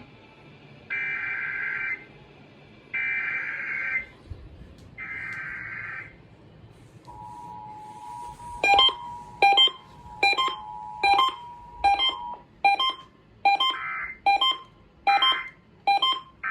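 Emergency Alert System SAME header: three one-second bursts of buzzing digital data tones, then the EAS two-tone attention signal (853 and 960 Hz) held steady for about five seconds, marking the start of an alert. From about the second second of the tone, a sharp beep repeats a little more than once a second, with short data bursts again near the end.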